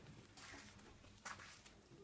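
Near silence: low room tone with a few faint, short scuffs and rustles, about a second apart.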